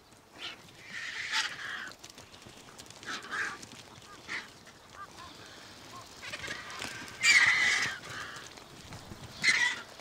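Griffon and black vultures squabbling at a carcass: a string of harsh calls, the loudest about seven seconds in and another shortly before the end.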